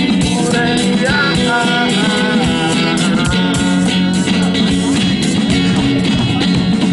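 Rock band music with guitar, playing steadily without lyrics.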